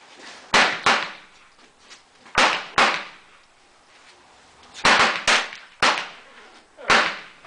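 Handgun shots, about eight sharp reports, several in quick pairs less than half a second apart, with gaps of a second or more between the groups.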